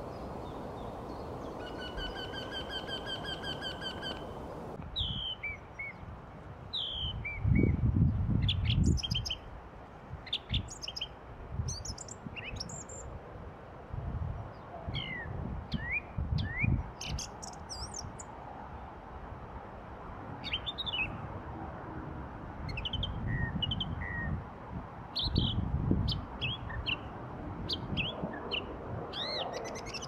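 A Eurasian wryneck gives a run of about nine even, pitched notes. Then a song thrush sings short, varied whistled phrases, several of them repeated, with low rumbles breaking in now and then, loudest about a quarter of the way through.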